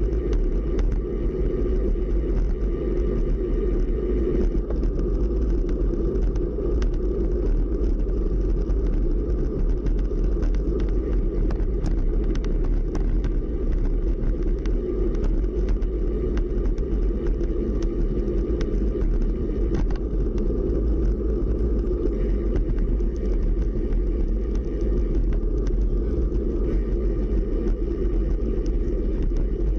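Steady rumble of wind buffeting the microphone and bicycle tyres rolling on asphalt during a ride, with a few faint ticks.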